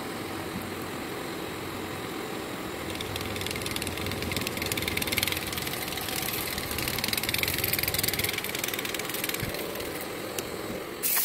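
Vertical milling machine running a ball-burnishing tool over a flat steel workpiece flooded with coolant: a steady machine hum with a hiss from the rolling balls and coolant that grows louder about three seconds in. Right at the end a sudden loud hiss starts.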